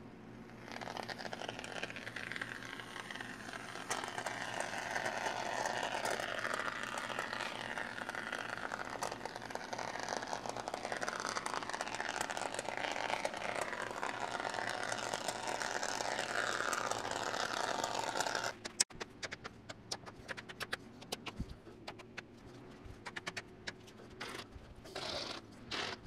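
Professional spray foam gun dispensing a bead of expanding foam with the flow dialled up: a steady hissing, crackling spray that cuts off suddenly about eighteen seconds in, followed by scattered faint clicks.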